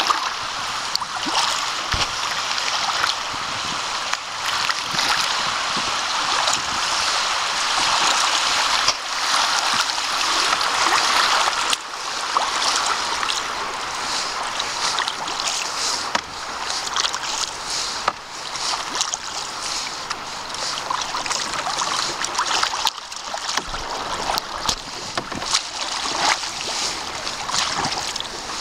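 Kayak on moving river water: a double-bladed paddle dipping and pulling in irregular splashy strokes over a steady rush of flowing water around the hull.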